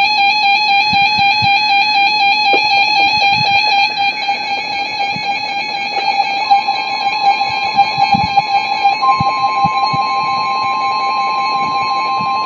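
Emergency Alert System tones on NOAA Weather Radio: a buzzy warbling electronic alert tone, over the fading warble of SAME data bursts. About six seconds in, the steady 1050 Hz Warning Alarm Tone joins.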